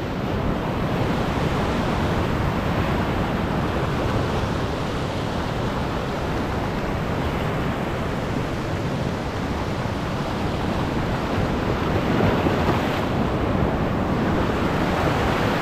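Ocean surf washing and surging over a rocky shore ledge: a steady rush of white water, swelling slightly near the end.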